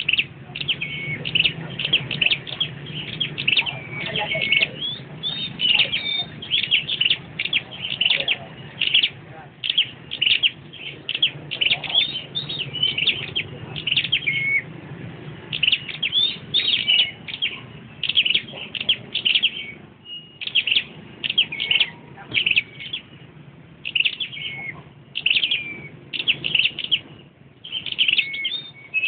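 Caged songbirds singing in a contest, quick runs of high chirps and trills one after another almost without a break, over a faint low background hum.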